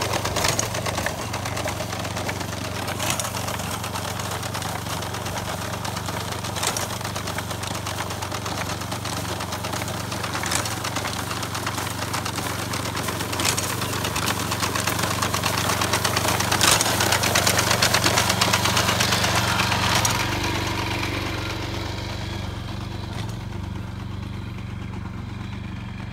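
Walk-behind rice binder (reaper-binder) running under load through standing rice: its small single-cylinder engine hums steadily, with a sharp clack every three to four seconds as the knotter ties and throws out a sheaf. After about twenty seconds the machine sounds fainter and duller.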